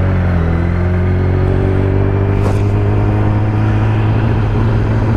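2015 Kawasaki Ninja ZX-10R's inline-four engine running steadily at low road speed, a constant drone with a little wind and road noise, picked up by a helmet-mounted microphone.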